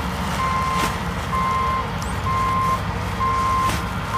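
A heavy machine's backup alarm beeping evenly, about one beep a second, four beeps in all, over the low running of its engine. Two short knocks come through, about a second in and near the end.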